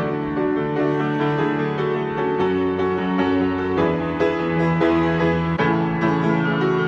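Slow instrumental keyboard music, held chords that change every second or so, with no singing.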